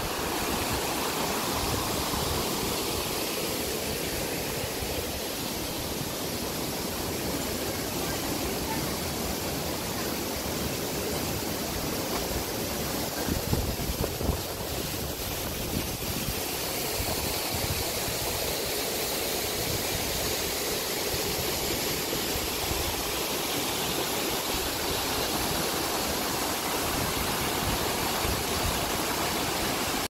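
Steady rushing of a tall waterfall, about 75 m high, pouring down into its plunge pool.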